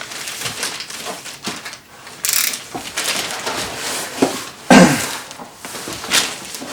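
Large cardboard boxes being handled: cardboard scraping and rustling as one box is slid out of the other, with a loud knock about five seconds in.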